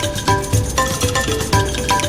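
Background music with a steady beat of low thumps about twice a second and short plucked-sounding notes over it, with no vocals.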